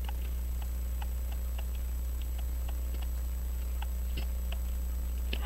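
Faint light ticks, about three a second and not quite even, over a steady low hum.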